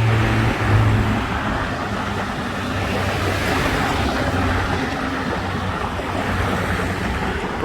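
Steady noise of busy road traffic passing on a highway, with a low engine hum strongest in the first second.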